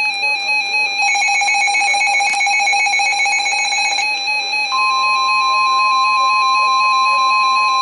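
NOAA Weather Radio emergency alert tones. A harsh, rapidly buzzing SAME data header runs for about three seconds, then the steady single-pitch 1050 Hz warning alarm tone starts a little before five seconds in and holds. Underneath throughout is a quieter repeating two-note tone pattern.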